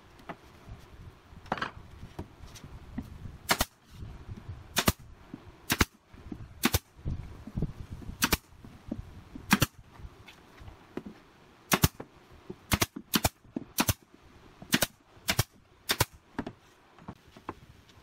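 Pneumatic brad nailer firing nails into pine pallet boards: about a dozen sharp, short shots, irregularly spaced and coming quicker in the last few seconds, with low knocks of the boards being handled between them.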